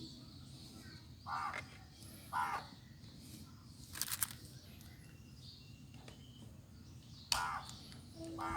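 Crows cawing in the background: two short harsh caws a second apart, then another near the end, with a couple of sharp clicks between them.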